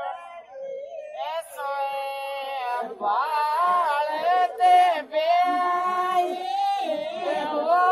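Women's voices singing a Shekhawati folk song (geet), long drawn-out notes that bend up and down between phrases, with a brief lull just after the start.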